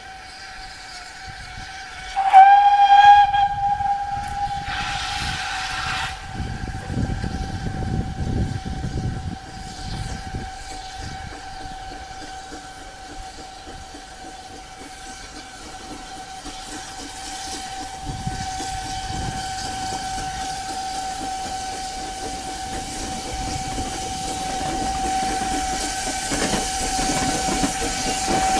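Steam whistle blown once about two seconds in, a single loud note, followed by a burst of steam hiss and the puffing of the GWR steam railmotor. The railmotor's running and steam hiss grow louder toward the end as it draws near.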